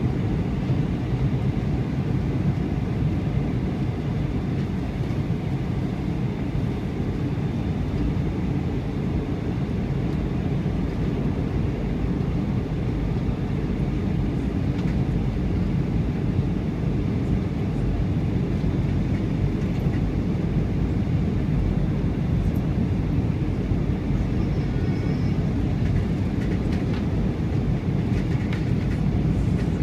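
Steady low rumble inside an airliner cabin on final approach: jet engines and rushing air, with no change in pitch or level.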